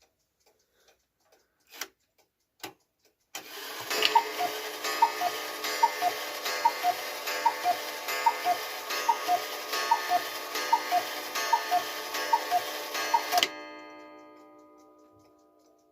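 Black Forest cuckoo clock ticking, then calling cuckoo about a dozen times in a row, each call a two-note bellows whistle, high then low, with a click, about one call every 0.8 s. The calls stop abruptly and their tones ring away over a couple of seconds.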